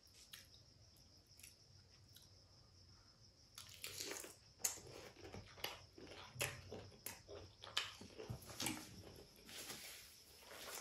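Close-miked chewing and crunching of fried chicken dipped in chutney. After a quiet start with a few faint clicks, a dense run of crunches and wet mouth clicks begins about three and a half seconds in and goes on to the end.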